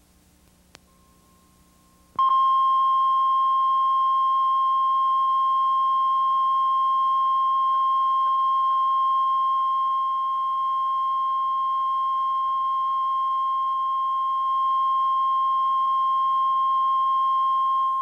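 Line-up test tone that accompanies colour bars at the head of a videotape: one steady, unwavering beep-like tone that starts abruptly about two seconds in and cuts off near the end. A faint click comes shortly before it, over low tape noise.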